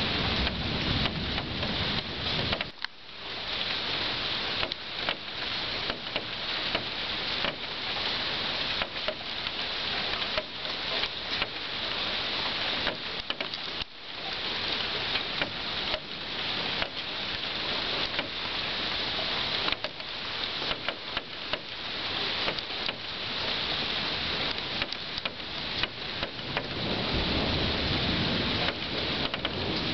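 Steady rain falling, with many small drops ticking close by. A low rumble of thunder swells up near the end.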